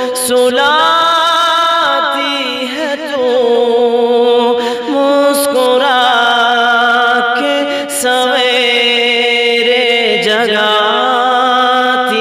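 A man singing an Urdu naat, drawing out long held, ornamented notes with wavering vibrato, over a steady backing drone.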